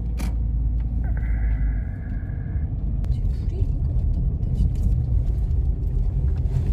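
A car driving slowly on an unpaved track, heard from inside the cabin: a loud, steady low rumble of engine and tyres. A sharp click comes near the start, and a steady high tone sounds for about a second and a half soon after.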